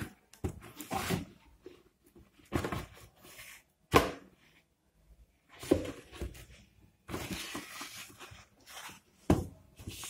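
Cardboard box being handled and turned over: irregular rustling and scraping of the cardboard, with sharp knocks about four seconds in and again near the end.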